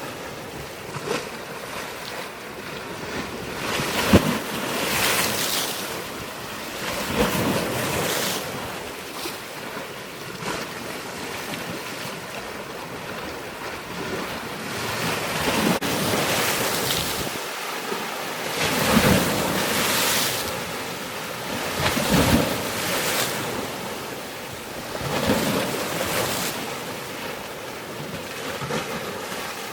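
Water washing and splashing in surges every few seconds, with wind on the microphone.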